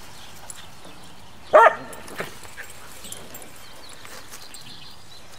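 Herding-dog puppy giving one short, sharp bark at the cattle it is working, about one and a half seconds in, with a much fainter yelp half a second later.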